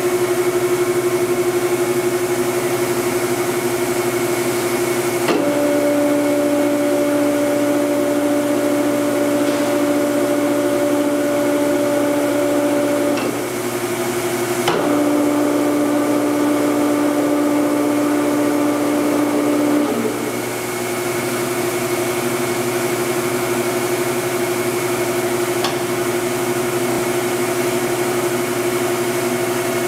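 1978 Blanchard 22K-42 vertical spindle rotary surface grinder running with a steady hum. About 5 s in and again about 15 s in, a click is followed by a change in the pitch of the hum for several seconds as the machine is switched between functions, then it returns to the first steady tone.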